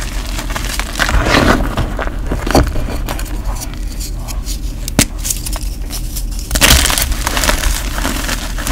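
Bare hands crushing and crumbling blocks of gym chalk into powder, a dense dry crunching and crackling. There is a single sharp snap about five seconds in and a louder flurry of crunching about a second and a half later.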